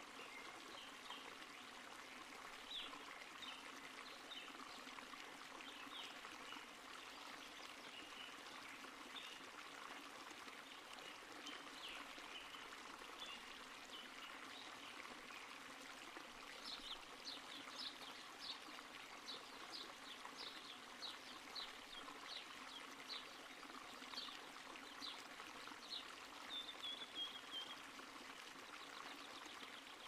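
Faint wetland ambience: a steady hiss with small birds chirping throughout, the chirps coming in a quicker, regular series of about two a second through the second half, with a short sliding call near the end.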